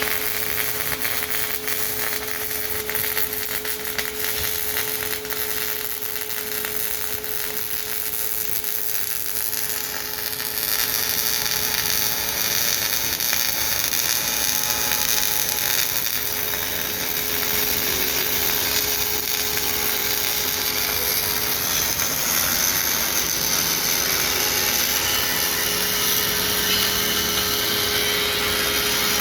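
Fronius CMT MIG welding arc laying down aluminium, a steady crackling hiss with a steady hum under it that grows louder about ten seconds in.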